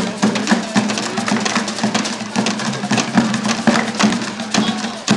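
Batucada percussion ensemble playing: fast, steady drumming with dense drum and wood strikes over a low drum tone.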